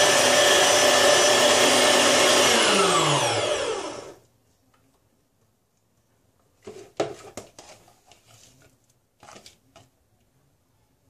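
Electric meat grinder running, grinding a last piece of bread through to clear out the mince; about three seconds in it is switched off and the motor winds down with a falling pitch. A few seconds later come short scrapes and knocks as the bread crumbs are scraped from the grinder head into a bowl.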